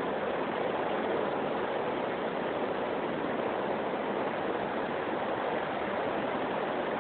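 Steady, even hiss of background room noise with nothing standing out.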